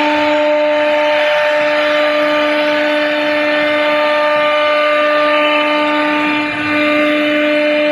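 A CNC router spindle cuts grooves into a laminated particle board panel, making a steady whine over a hiss of cutting.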